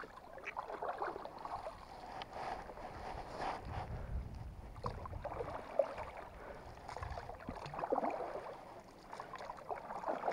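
A wooden paddle stroking through the water beside a log raft: splashing and sloshing that swells with each stroke, about every two to three seconds.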